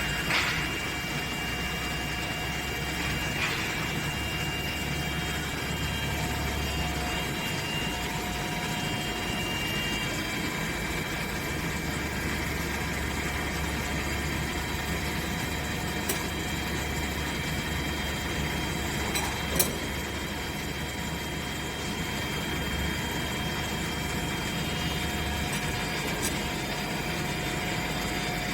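CNC machine running while machining an electric motor housing: a steady mechanical hum with several high, steady whining tones, broken by a few short ticks. The sharpest tick comes about two-thirds of the way through.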